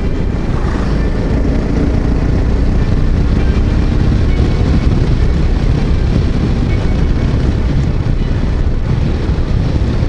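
Steady, loud wind noise buffeting the microphone over the Yamaha XT660Z Ténéré's single-cylinder engine running at road speed. The extra wind noise comes with the newly shortened windscreen.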